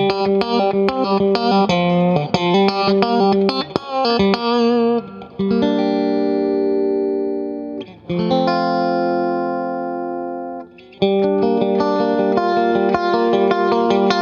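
Electric guitar played through an Effectrode PC-2A photo-optical tube compressor pedal. Quick picked single notes come first, then two long chords left to ring for a few seconds each, then a busier picked passage from about eleven seconds in.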